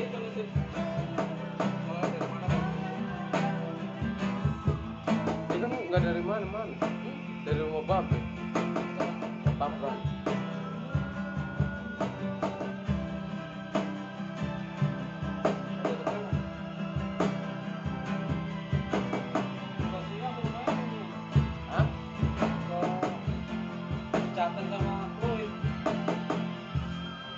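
Acoustic guitar played over a hand-struck cajon keeping a steady beat: a live two-person jam.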